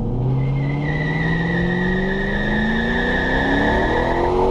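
Car engine at full throttle, its pitch climbing steadily as the rear tires spin in a burnout, with a steady high tire squeal over it.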